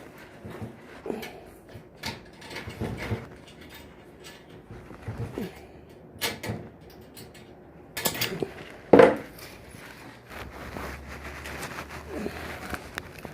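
Scattered knocks, clicks and scrapes of a sliding shower door and its fittings being handled and worked on, with a louder brief sound about nine seconds in.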